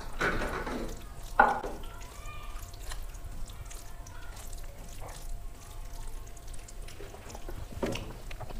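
Hand-eating sounds: fingers squishing and mixing rice and curry on steel plates, with water being drunk from a plastic bottle. A few short louder noises stand out near the start and about a second and a half in.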